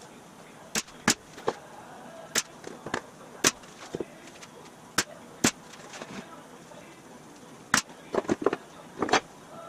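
Pneumatic nail gun driving nails into wood: about a dozen sharp shots at uneven intervals, several in quick succession near the end.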